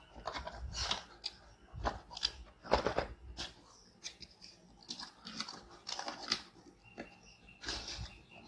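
Cardboard router box being opened by hand: irregular rustling, scraping and crunching of cardboard and packing, with the loudest crunch about three seconds in.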